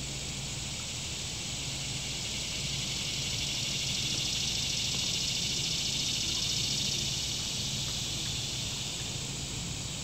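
Insects buzzing in the trees: a steady high-pitched shrill drone with a fine rapid pulse, swelling a few seconds in and easing off toward the end, over a faint low hum.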